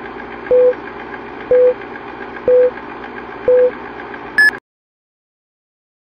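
Film countdown-leader sound effect: a film projector running with a fast steady clatter, a low beep on each second of the count four times, then a shorter, higher beep. The sound then cuts off to silence.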